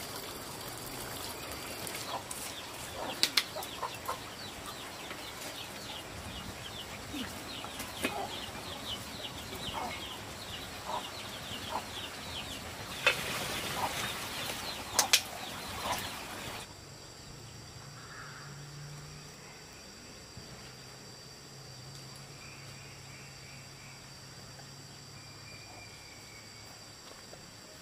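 Chickens clucking and flapping their wings, with a few sharp knocks. About two-thirds of the way through, the sound cuts to a quieter background with faint bird calls.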